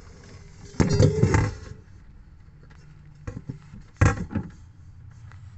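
Handling knocks and scraping as a phone is moved about inside a cramped under-sink cupboard: a loud cluster about a second in and a shorter one about four seconds in, over a low steady hum.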